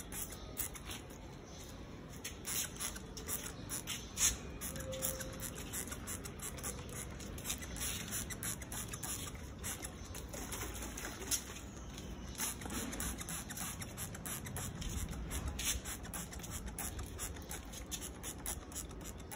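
Hand trigger spray bottle spritzing a diesel and petrol mix onto rusted motorcycle parts in many quick, irregularly spaced sprays, with some handling noise. The mix is being sprayed on to loosen the rust.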